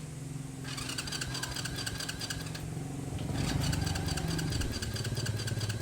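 Honda Wave motorcycle engine being cranked over in a spark test, the plug cap off the high-tension lead: a steady mechanical hum with fast, even ticking, rising a little in speed about two-thirds of the way through. The spark is strong and even, so the ignition is not the cause of the stalling.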